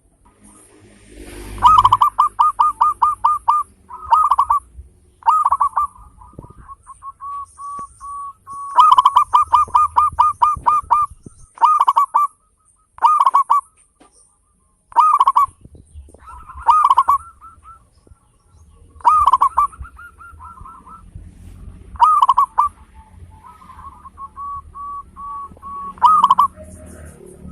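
Zebra dove (local perkutut) cooing: loud runs of quick, clipped notes, about six a second, each run a second or two long and repeated again and again with short pauses.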